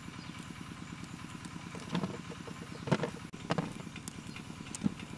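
A small engine runs steadily in the background with a fast, even low pulse. A few sharp taps and clicks come through it as grapes are pulled off their bunches and dropped into a plastic basket.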